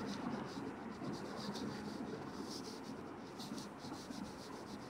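Faint scratching of handwriting strokes on a touchscreen, several short strokes a second as letters are written.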